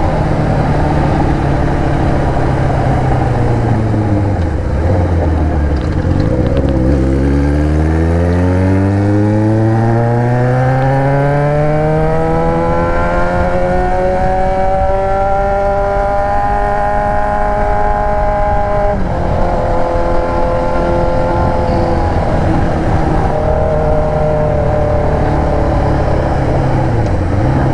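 Yamaha XJ6's 600 cc inline-four engine with an aftermarket Atalla exhaust, heard from the bike while riding. The revs fall to a low point about five seconds in, then climb steadily for about ten seconds as the bike accelerates. They drop suddenly, hold steady, and dip briefly again near the end.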